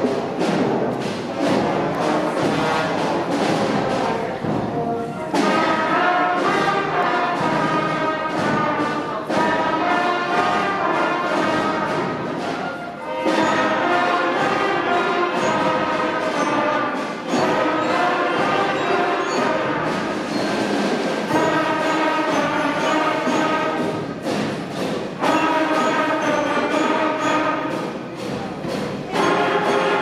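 A school concert band playing, with flutes, clarinets and saxophones among the instruments, in held chords and phrases that change roughly every four seconds.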